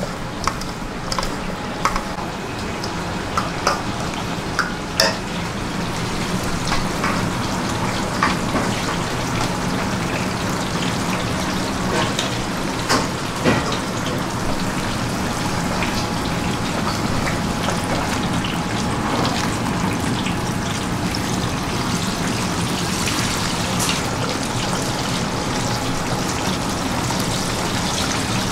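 Food sizzling in a hot pan, a steady hiss, with a few sharp clicks and knocks of utensils and a steady low hum underneath.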